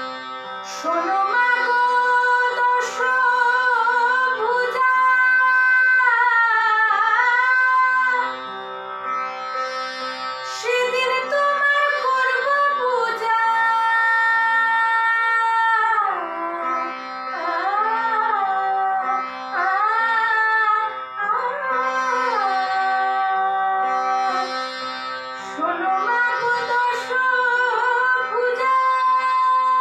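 A woman singing a slow, classical-style melody with long held notes and sliding ornaments, over the steady drone of a tanpura she plucks.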